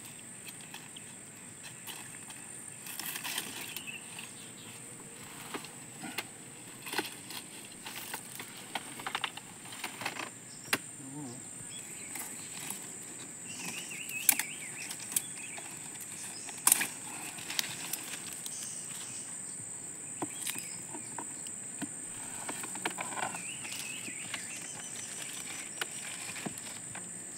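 Irregular sharp chops, snaps and rustles of a machete cutting pineapple stalks and pushing through the spiky leaves, over a steady high insect drone. A few short chirps come in now and then.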